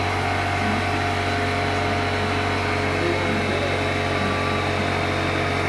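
A motor engine running steadily at constant speed: an even low hum with a faint steady whine above it.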